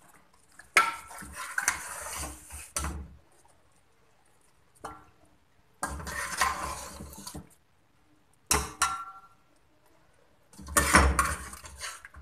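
A metal spoon scraping and clinking against stainless steel pots as chicken and potato curry is ladled out and spread over boiled rice, in four short bouts with quiet gaps between them.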